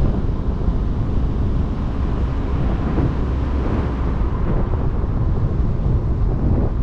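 Wind buffeting the microphone of a camera mounted outside a moving car, over the car's road noise: a steady low rumble with no breaks.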